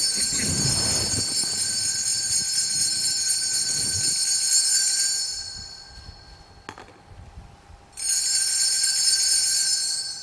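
Altar bells ringing at the elevation of the chalice at the consecration: a high, steady ringing for about five seconds that then fades away. A second ringing starts suddenly about eight seconds in, at the celebrant's genuflection.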